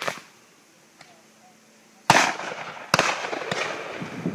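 Shotguns firing at a driven game shoot: a faint shot at the start, then two loud shots under a second apart a little after two seconds in, each with a rolling echo.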